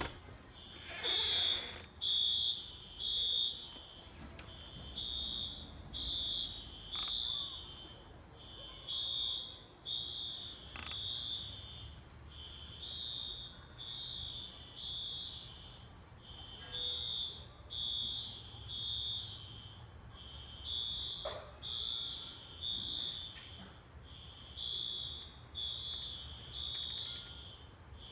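Several fire alarms beeping in the temporal-3 (code 3) evacuation pattern: groups of high-pitched beeps then a pause, repeating about every four seconds. The alarms are not in sync, so their beeps overlap and the three-beep pattern can sound like code 6.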